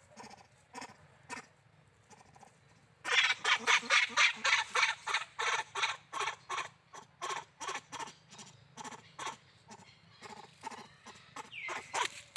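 Monkey calling in a rapid series of loud, shrill cries, about three a second. They start about three seconds in and gradually weaken, with a falling squeal near the end.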